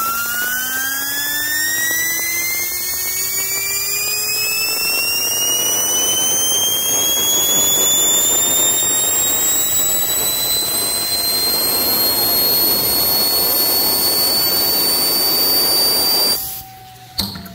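A small metal pipe adapter spun by compressed air from a blow gun gives a high whine over the hiss of the air, its pitch climbing steadily as it speeds up and then levelling off at top speed. The whine cuts off suddenly near the end, followed by a few clicks.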